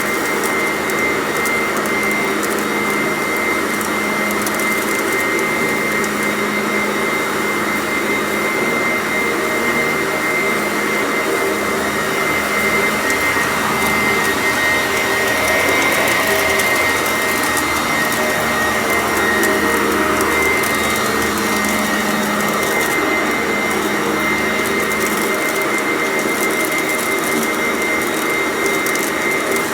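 Two Sanitaire vacuum cleaners running together with a steady motor whine, and a constant fine crackle of crunchy debris being sucked up.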